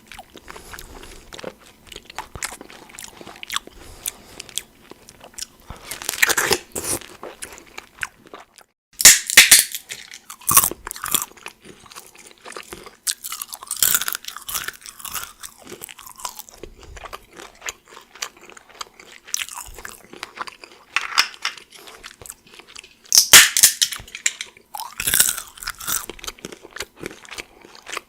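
Chewing pear with soft, wet crunching. After a brief pause about nine seconds in, walnuts are bitten and chewed with louder, sharper crunches.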